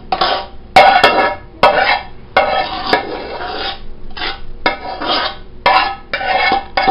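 A spoon scraping and clinking against metal dishes as picadillo stuffing is ladled into an aluminium roasting pot: a string of separate scrapes and clatters, about one a second.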